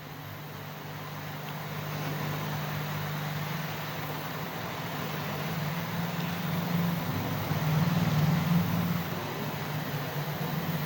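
Steady hiss of a gas flame with a low hum underneath, heating a non-copper CAT6 cable conductor to test whether it is pure copper; the flame noise swells a little about two seconds in and again past the middle.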